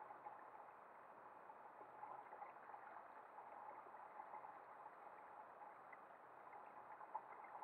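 Near silence: faint, steady water lapping and gurgling against a kayak's hull.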